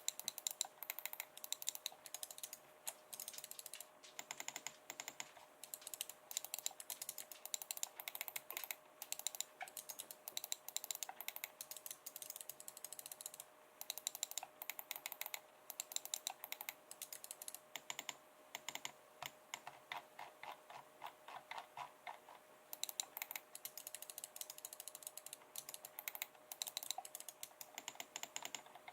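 Corsair Ironclaw RGB gaming mouse buttons clicking rapidly and repeatedly, in quick runs of sharp clicks with brief pauses.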